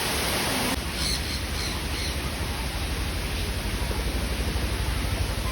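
A few short, high bird calls between about one and two seconds in, over a steady rushing background noise.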